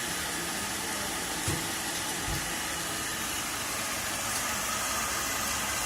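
Electric rice grinder running steadily, a continuous motor and grinding noise with a couple of soft knocks about one and a half and two seconds in.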